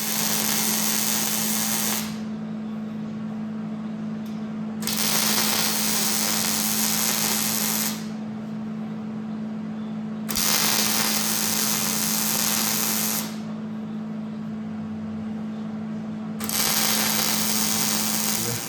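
Arc welding tack welds joining expanded metal onto steel smoker grates: four welds of about two to three seconds each, each a loud steady crackle of the arc, with a steady low hum underneath throughout.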